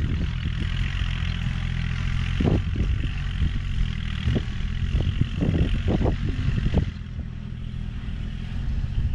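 Four-wheel-drive farm tractor engine running steadily, with a run of short knocks in the middle. About seven seconds in the higher hiss falls away and the sound eases a little.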